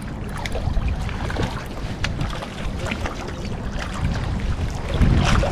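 Wind rumbling on the microphone, with scattered light clicks and knocks of handling, growing louder near the end.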